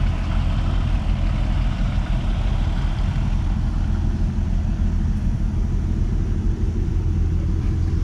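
Steady low rumble of a GMC Yukon driving at road speed: engine, tyre and road noise.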